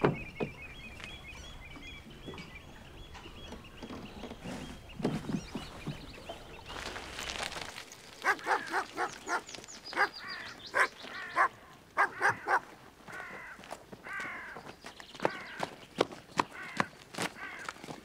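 Birds calling outdoors: a high trilling over the first few seconds, then from about halfway repeated short runs of harsh, crow-like caws, with scattered sharp ticks.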